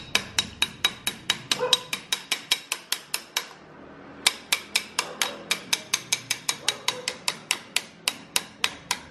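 Sharp, evenly spaced taps or clicks, about four a second, that stop for under a second a little before the middle and then carry on.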